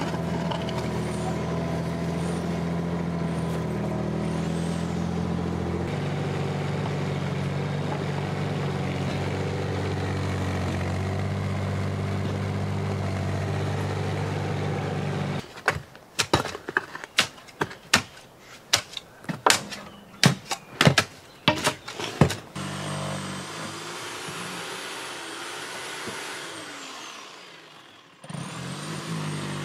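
Mini excavator's engine running steadily while its bucket digs at the foot of a stone wall. About halfway through the engine note drops away and a run of sharp knocks and clatters follows for several seconds.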